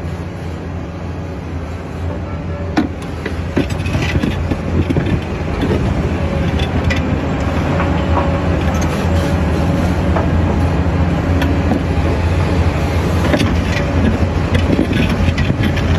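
Excavator's diesel engine running steadily, growing louder over the first few seconds, with scattered knocks and clatter as it works stone.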